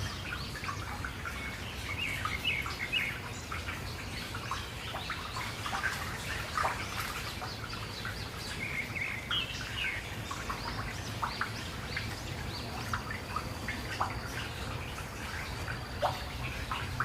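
Several wild birds chirping and calling, short scattered calls of varying pitch throughout, over a steady low hum. A thin steady high tone joins near the end.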